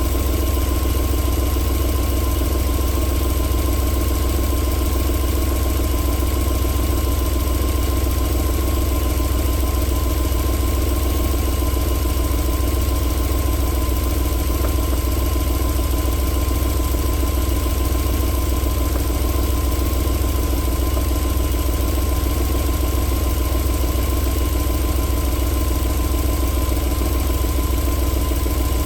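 Alfa Romeo 3.0 24-valve V6 engine idling steadily.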